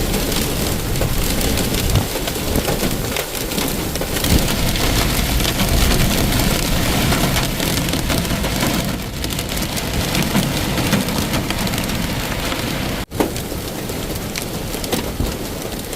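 Very heavy rain pouring down, a dense, steady downpour.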